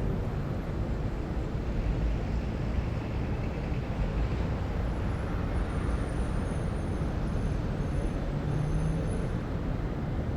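City traffic ambience: a steady low rumble of vehicles, with a faint high-pitched whine in the second half.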